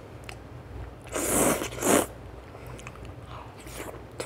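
Sauce-coated Chinese glass noodles slurped into the mouth: a long slurp about a second in, ending in a short, louder one, then faint chewing.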